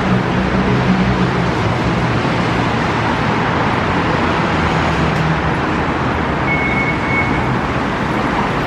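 Steady city road-traffic noise with a low engine hum, and one short electronic beep about three-quarters of the way through, of the kind a station fare gate gives.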